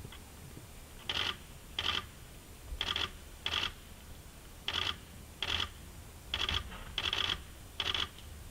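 Canon camera's lens motor buzzing in about nine short bursts, roughly in pairs, picked up by the camera's own microphone.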